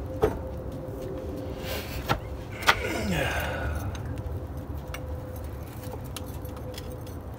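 Metal knocks and clinks as a rear hub and brake bracket are handled and seated against a car's rear trailing arm: three sharp knocks, the last the loudest, followed by a brief falling tone. A low rumble and a faint steady hum run underneath.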